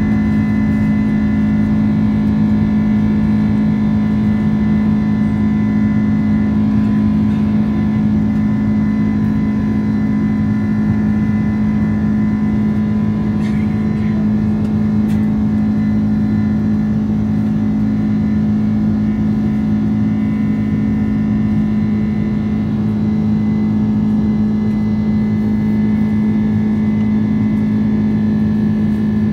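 Boeing 767-400(ER) turbofan engines at climb thrust, heard from inside the cabin beside the wing: a loud, steady drone with a strong low hum and several higher steady whining tones over a rushing rumble.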